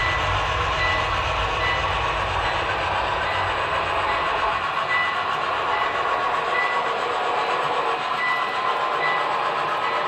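HO scale model freight train of tank cars rolling past on the layout track, a steady running clatter of wheels on rail. A low rumble under it drops away about halfway through.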